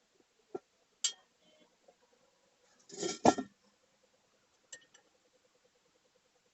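Steel tyre lever clinking and knocking against a steel wheel rim as a tyre bead is levered onto it: a few separate metallic clicks, with a louder cluster of knocks about halfway through.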